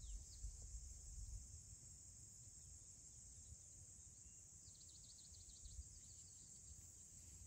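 Quiet summer ambience: a steady high-pitched insect chorus, with a short run of faint high chirps about five seconds in.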